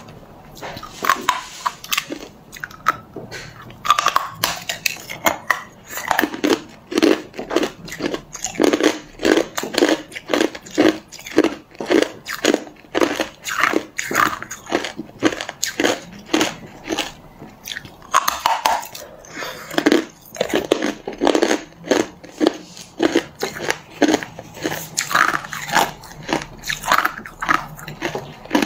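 Hard clear ice being bitten and chewed, an unbroken run of sharp crunches and cracks as the chunks break between the teeth.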